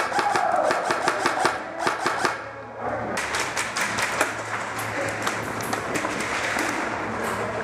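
Airsoft guns firing in rapid bursts in an indoor plywood arena: a dense patter of sharp cracks that pauses briefly about two and a half seconds in, over a steady low hum.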